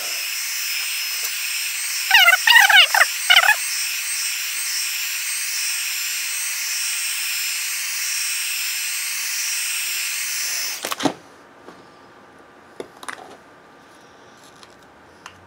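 Small handheld heat gun running, its fan blowing a steady hiss with a faint whine as it heats a phone's back cover to soften the adhesive tape. It switches off abruptly about eleven seconds in. A short squeaky warble sounds about two seconds in, and a few light handling clicks follow near the end.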